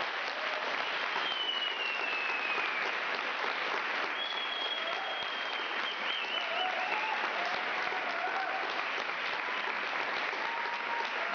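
Audience applauding steadily, with two long high falling whistles over the clapping, about a second in and again about four seconds in.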